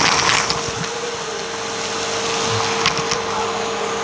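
Helix vacuum cleaner running with a steady motor whine while its hose nozzle sucks up dry rice, cereal bits and beads from a rug, the debris clicking and rattling as it is pulled in.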